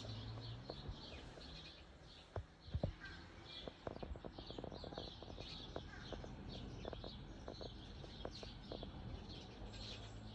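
Small birds chirping over and over, a few high chirps each second, with a cluster of sharp little clicks and taps about two to five seconds in.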